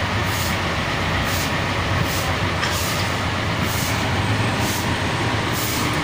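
A truck's engine running steadily, with the swish of stick brooms on wet pavement about once a second.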